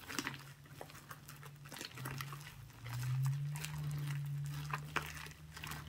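Vaseline foam slime squeezed and kneaded by hand, giving many small crackling, squelching clicks. Under it runs a low hum that swells about halfway through.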